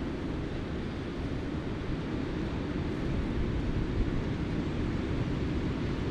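Wind blowing across the microphone, a steady low rushing, over the wash of surf at a river mouth.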